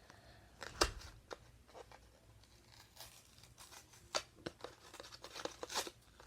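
Scattered clicks and crinkles of a Hot Wheels blister pack's plastic and cardboard being pried and worked at by hand, the package stubbornly refusing to open.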